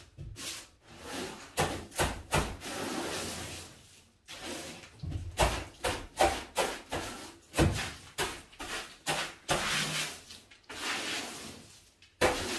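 Broom sweeping dry debris and rat droppings across a bus floor: a string of short, repeated strokes with a few longer sweeps.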